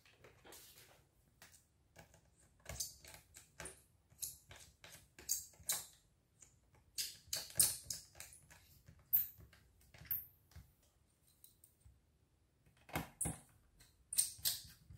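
Hands handling an opened laptop's metal chassis and small plastic parts: irregular clicks, taps and scrapes, spread through the whole stretch, with a faint steady hum beneath.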